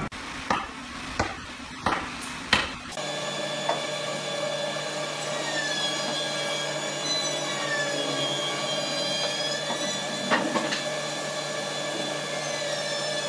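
Four sharp wooden knocks about two-thirds of a second apart as timber boards are handled. After about three seconds the knocks give way to a steady hum with several held tones and an occasional click.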